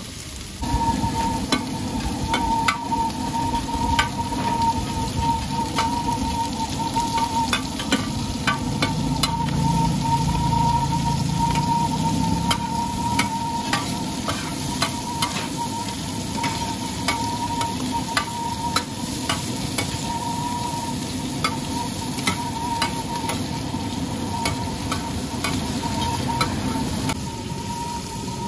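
Seafood (mussels, shrimp and squid) sizzling on a large round flat griddle while two metal spatulas scrape and clack against the pan, tossing and stirring it. A steady tone runs underneath from about half a second in.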